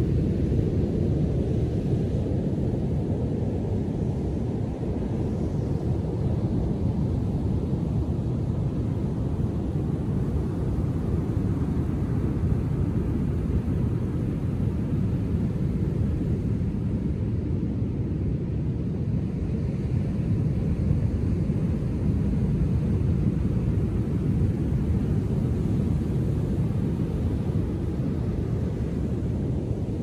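Storm-driven ocean surf breaking offshore and washing up the beach, a steady low rumble of waves with no pause.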